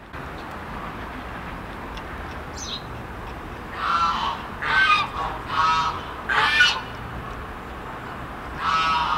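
Geese honking: four loud honks in quick succession, then one more near the end, over a steady low outdoor rumble.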